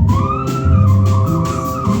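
Small jazz band playing live: a bass line of low notes under a lead melody that slides smoothly up and down, with regular cymbal and drum strokes.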